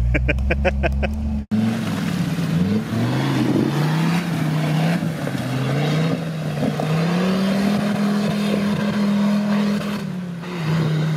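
Off-road 4x4 engine revving, its pitch rising and falling several times, then held higher for a few seconds before dropping back.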